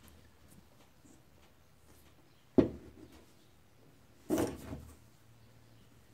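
Bench handling noise: a single sharp knock about two and a half seconds in, then a short, rougher rustling scrape about four and a half seconds in as a cleaning cloth is handled.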